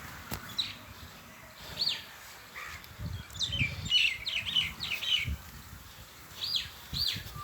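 Small birds chirping: short, sharp chirps, scattered at first and then in a quick run about three to five seconds in, with a few dull low thuds under them.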